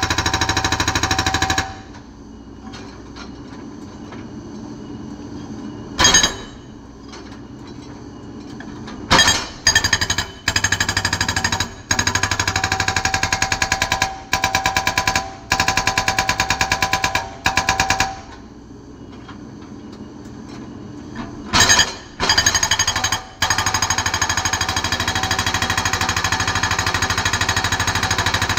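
Excavator-mounted hydraulic breaker hammering rock in rapid, even strokes. It works in runs of a few seconds, several of them start-stop, then an unbroken run through the last several seconds. In two longer pauses only the machine's steady engine hum is left.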